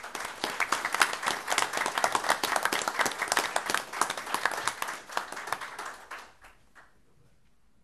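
Audience applauding, dense clapping that dies away about six seconds in.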